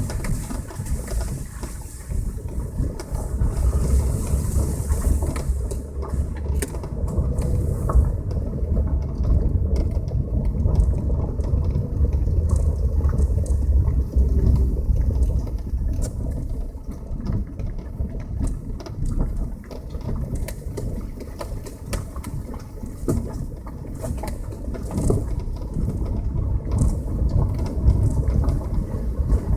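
Passenger car driving: a steady low rumble of engine and tyres, with many short knocks and clatters throughout.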